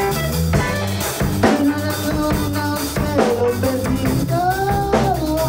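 Psychedelic rock band playing: a drum kit keeps a steady beat under guitar while a man sings into a microphone, his voice sliding between held notes.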